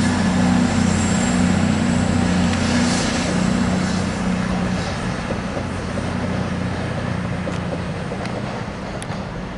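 CrossCountry Voyager diesel multiple unit moving through the station, the steady drone of its underfloor diesel engines slowly fading as it draws away. A few sharp wheel clicks over rail joints come near the end.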